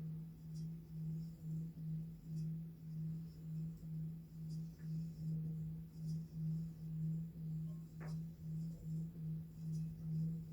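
Hand-hammered plain singing bowl played with its stick, giving one steady low hum that pulses evenly about twice a second, the beating that marks a well-made bowl.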